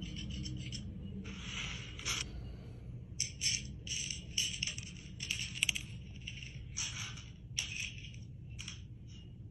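Sunflower seeds rattling and scraping in a handheld plastic seed tool as it is worked by hand: a string of short, irregular bursts, busiest in the middle.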